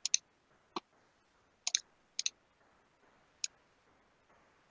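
Computer mouse clicking: a handful of short, sharp clicks spaced out over a few seconds, some coming in quick pairs.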